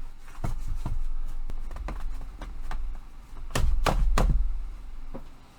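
Parts of a flat-pack hobby tool rack being handled and pushed together by hand: a series of light clicks and knocks, with a cluster of three louder knocks a little past halfway.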